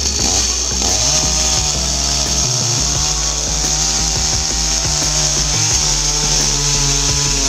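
Parkside PBKS 53 A1 chainsaw's 53 cc two-stroke petrol engine running flat out while its chain cuts through a hazel log, the engine note holding steady with a hissing rasp from the chain.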